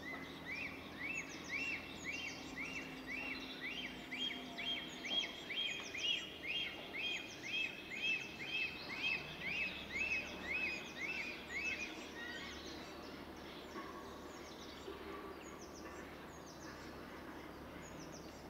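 A black stork pair calling as they greet each other at the nest: a series of about two dozen repeated whistled notes, each rising and falling, about two a second, which stop after about twelve seconds. Small songbirds chirp faintly in the background throughout.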